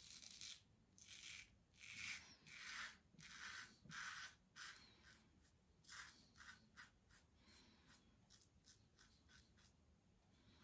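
King C Gillette double-edge safety razor with a BIC Astor blade scraping through stubble and thin lather in about a dozen short strokes, on a second pass across the grain. The strokes are loudest in the first half and shorter and fainter in the second half.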